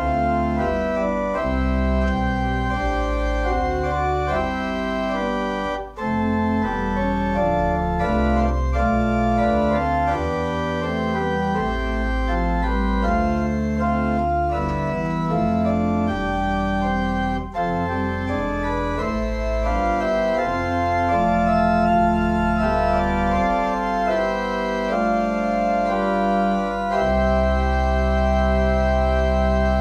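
Pipe organ playing a chordal piece with deep pedal bass notes, the chords changing every second or so. There are two brief breaks, about 6 and 17 seconds in, and it ends on a long held full chord.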